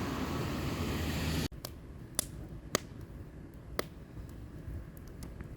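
A steady noise that cuts off abruptly about a second and a half in, followed by a few scattered sharp clicks against a quiet background.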